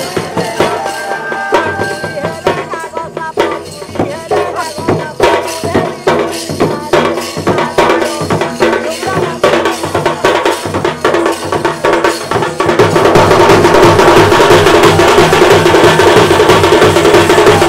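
Odia folk dance music: drums and percussion beating a steady rhythm under a melody line. About thirteen seconds in it turns into a louder, denser drumming.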